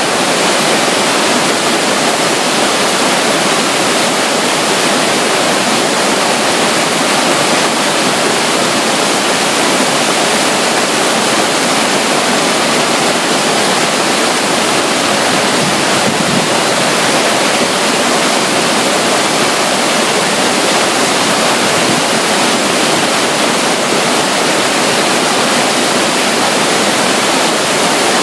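A small flow of water running and splashing close by, a steady, unchanging rush.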